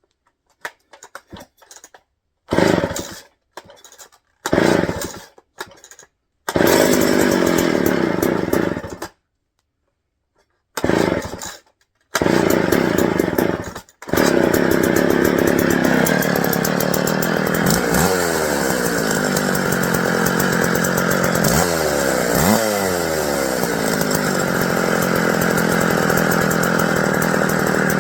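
McCulloch Timberbear two-stroke chainsaw being pull-started: a few short bursts, then it catches and runs for a couple of seconds and dies, twice. From about halfway it keeps running and is revved up and down twice.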